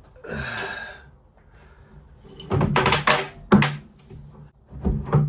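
A rattling scrape about the start, then a series of heavy thuds and knocks.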